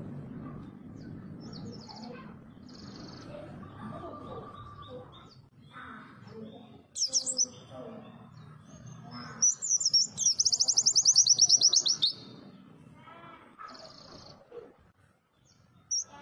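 White-eye (pleci) singing: scattered short high chirps, a sharp burst about seven seconds in, and a long, fast trill of rapidly repeated notes lasting about two and a half seconds past the middle, over a low background noise.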